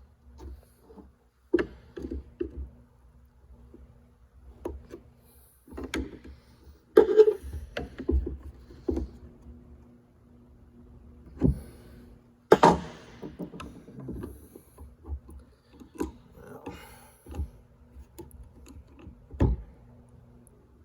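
Irregular knocks, clicks and clunks of hand tools working on the stock gear shifter assembly, with three louder sharp knocks spread through, over a faint steady hum.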